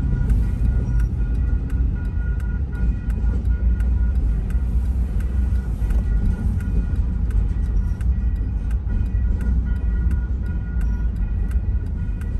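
Double-stack container freight train passing over a grade crossing, a steady low rumble heard from inside a car. A crossing bell rings repeatedly above it.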